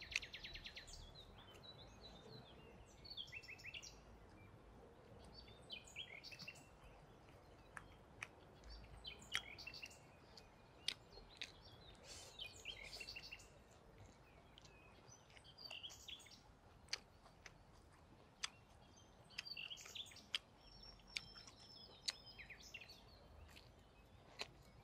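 Small birds chirping on and off, with scattered sharp crunches of chewing crispy breadcrumb-coated fried pork.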